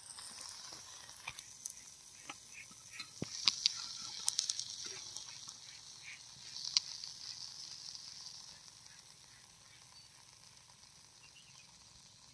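Hot oil sizzling with scattered sharp crackles, fish frying. It is strongest in the middle and fades to faint after about eight seconds.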